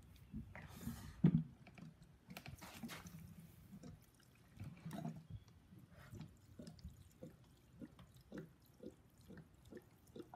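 Two-stroke fuel mix pouring from a plastic gas can into a string-trimmer-style edger's small plastic fuel tank: a faint trickle with irregular small drips and splashes.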